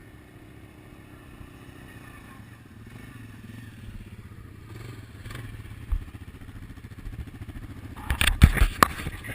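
ATV engine running steadily at low revs, a little louder after a few seconds, with a single thump partway through. Near the end comes a burst of loud knocks and clatter close to the microphone.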